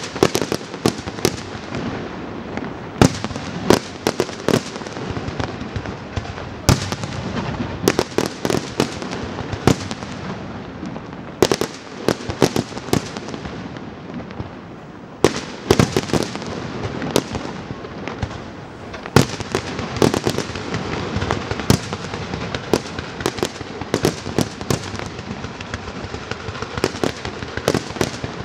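Pirotecnia Martí castillo (aerial fireworks display): a dense, continuous crackle of many small reports, punctuated by frequent irregular louder bangs from shell bursts.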